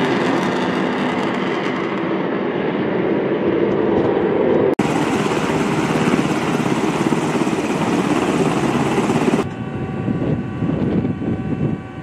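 Loud steady rushing noise, broken by a sudden cut a little before halfway. About three-quarters in it changes to an MV-22 Osprey tiltrotor flying: a steady hum of several tones from its engines and proprotors, with a beating pulse.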